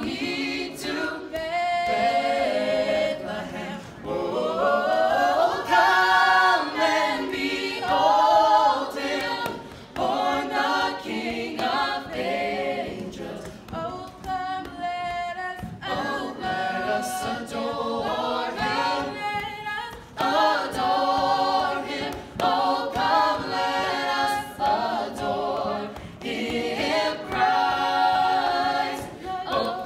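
A small group of young voices, boys and girls, singing a Christmas carol a cappella in phrases, with no instruments.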